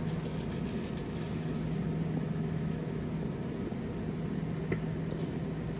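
Automated hematology (CBC blood cell) analyzer running its measuring cycle after taking up a blood sample: a steady mechanical hum with one short click near the end.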